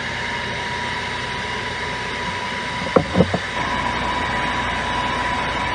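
Wet/dry shop vacuum running steadily, sucking out an air conditioner's condensate drain line through an adapter on the drain pipe. A brief cluster of sharp knocks comes about three seconds in, after which it runs a little louder.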